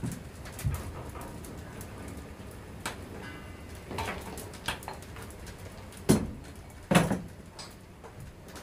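Plastic maple sap taps and tees clicking and knocking as they are handled and pressed together, a few light clicks, then two louder knocks about six and seven seconds in.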